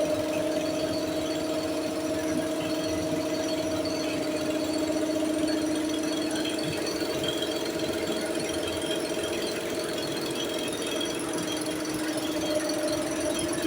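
A power tool's electric motor running steadily with a constant pitched hum, without a break or change in speed.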